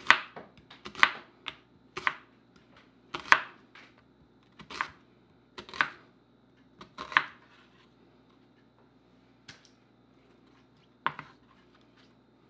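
Kitchen knife slicing an onion into half-moon slices on a wooden cutting board: about ten separate, unhurried cuts, each a sharp knock of the blade on the board, with a pause of a few seconds before the last cut.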